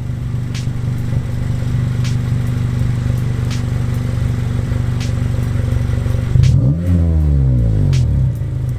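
Acura RSX's four-cylinder engine idling steadily through its exhaust as fitted before a catback and test-pipe swap. About six and a half seconds in it is revved once, the pitch climbing and falling back to idle within two seconds. The owner finds this exhaust too loud and wants a deeper tone.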